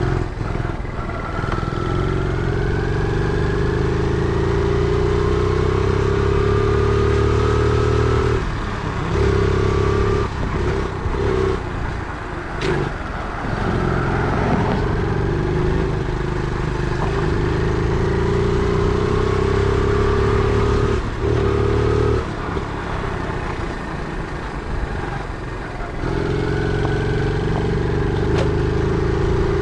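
Single-cylinder 50cc four-stroke engine of a Honda Monkey–replica mini bike, heard from the rider's seat, with the revs climbing slowly under throttle. The throttle shuts off briefly several times near the middle, and the engine runs lower and quieter for a few seconds about two thirds through before pulling up again.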